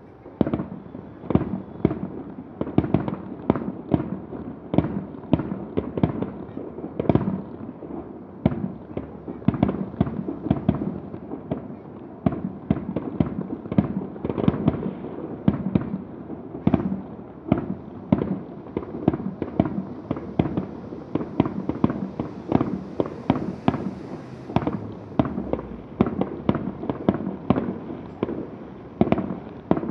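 Aerial fireworks bursting in a dense, continuous barrage, about two to three booms a second, each trailed by a rolling echo.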